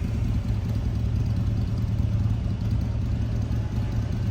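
Steady low drone of a vehicle's engine and road noise while driving, unchanging throughout.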